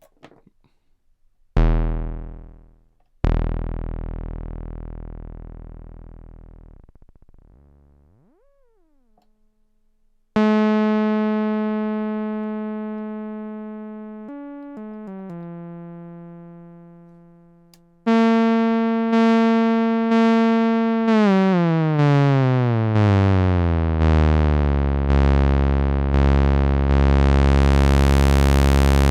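Moog Werkstatt-01 analog monosynth played with an experimental patch. Two low notes die away slowly, a short upward pitch glide follows, then a long held note steps down in pitch. From about two thirds in, a note is retriggered about once a second, each hit's brightness falling away, while the pitch slides downward.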